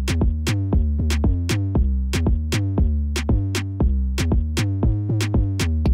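Background electronic music with a steady drum-machine beat over a deep bass line.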